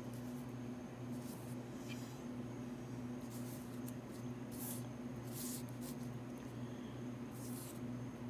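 Steady low electrical hum of a small room, with a faint high whine, broken by about five brief soft rustles and scrapes of hands handling resin pieces.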